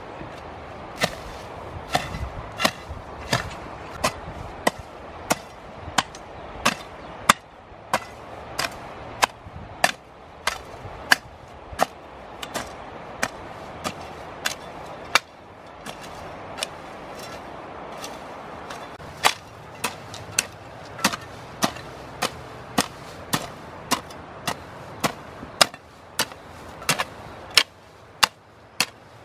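Rhythmic chopping with a hand tool while weeding: a sharp stroke about every two-thirds of a second, with a brief pause past the middle.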